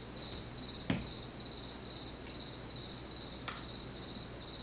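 A cricket chirping steadily, a high chirp repeating about twice a second, with a sharp click about a second in and a lighter click past three seconds from small lock parts being handled as the driver pins are taken out.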